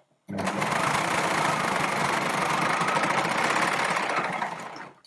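Brother four-thread overlocker (serger) stitching at a steady fast speed. It starts suddenly just after the start and winds down to a stop near the end.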